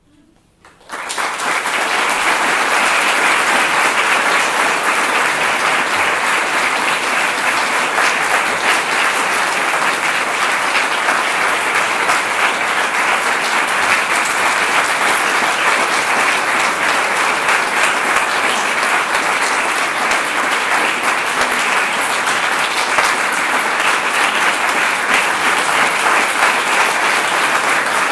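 Audience applauding: clapping breaks out suddenly about a second in, out of near silence, and goes on as steady, dense clapping.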